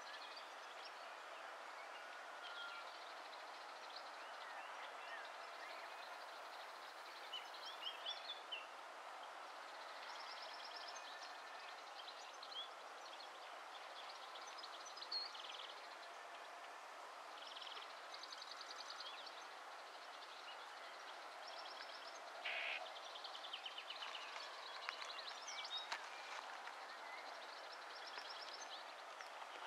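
Faint outdoor summer ambience: a steady background hiss with scattered bird chirps and several short, rapid chirping trills.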